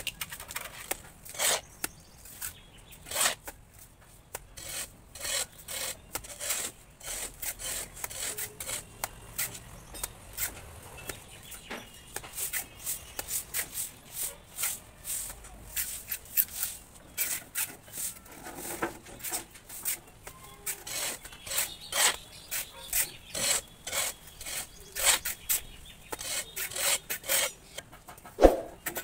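Mason's steel trowel scraping cement-sand plaster across a brick wall in a steady run of short rasping strokes, with a louder knock near the end.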